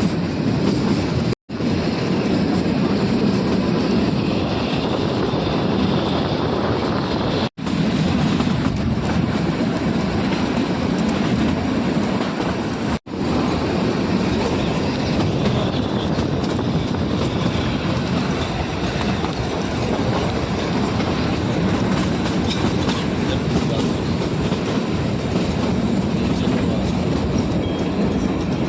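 Narrow-gauge Kalka–Shimla toy train running, a steady rumble and clatter of wheels on the rails. The sound cuts out to silence for an instant three times in the first half.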